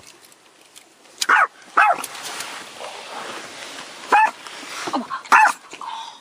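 Small long-haired dog barking inside a car: about five short, high-pitched barks, two close together early, then three more near the end.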